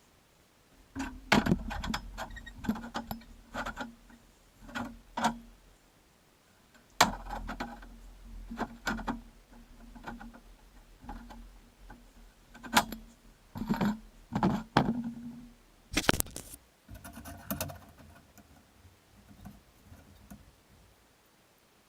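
Steel frame pieces and hand tools being handled on a metal work surface: irregular metallic clinks and knocks, some ringing briefly, with short quiet gaps between.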